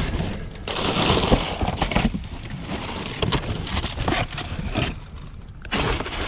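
Plastic bags and packaging rustling and crinkling as hands shift trash in a dumpster, in irregular bursts that are loudest about a second in and again near the end.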